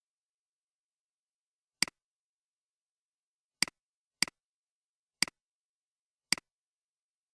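Computer mouse clicking, five single clicks at uneven intervals, each a sharp press followed by a fainter release.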